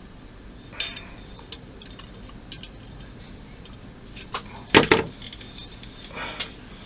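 Small hard clicks and knocks of model-kit parts being pushed and snapped into place, with a loud quick cluster of clicks about five seconds in and a short scrape near the end.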